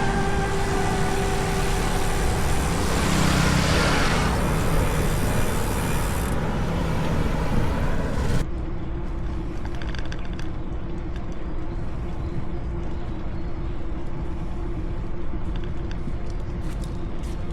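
Road traffic noise heard while riding along a city street: a steady rumble of engines and tyres. The sound changes abruptly about eight seconds in, becoming duller with a faint steady hum.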